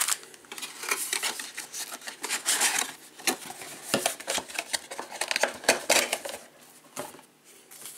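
Sealed foil-wrapped trading-card packs and their cardboard box being handled, the packs set down and squared into a stack on a table: a run of light clicks, taps and crinkles, quieter for a moment near the end.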